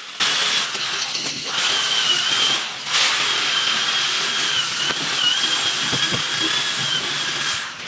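A small electric motor running steadily with a high, slightly wavering whine, dipping briefly twice and stopping near the end.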